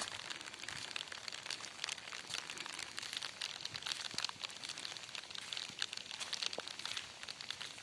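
Rain pattering: a dense, even crackle of many small drop impacts.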